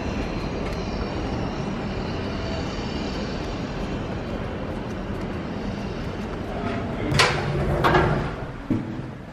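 Steady street noise with a rumble of traffic while walking along a pavement, then two loud clanks about seven and eight seconds in as a lift's sliding metal doors move, with a smaller knock just after.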